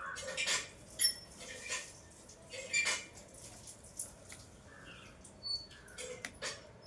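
Light clicks and clatter of small metal tools being handled while a ceiling fan coil's wire is stripped, with a crow cawing now and then in the background.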